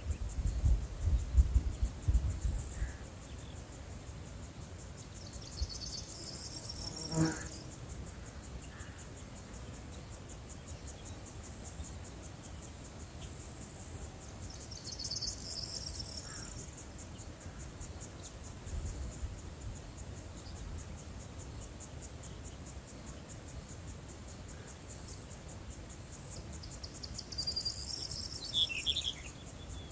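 Crickets chirring steadily in a high, rapidly pulsing trill, with a few short high calls breaking in over it now and then.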